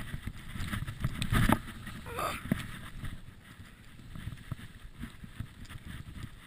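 Sliding over bumpy snow, with a steady scraping rumble, heard through a chest-mounted camera. A heavy thump about a second and a half in, as the rider goes over a bump, is followed by a brief vocal sound, and the scraping then runs on more quietly.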